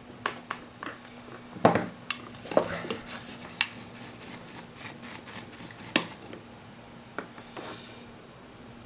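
Light metallic clinks, taps and scrapes from small soldering tools being handled on the bench. The loudest taps come about a second and a half in and again about six seconds in, and the sounds stop shortly after.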